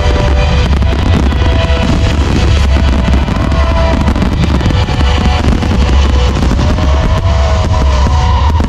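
Loud music from a fireworks display's loudspeakers, with fireworks popping and crackling throughout.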